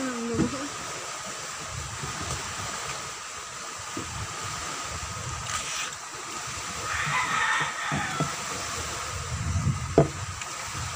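Steady outdoor background noise with a low rumble and faint steady high tones, broken by a few soft knocks and a sharp click about ten seconds in.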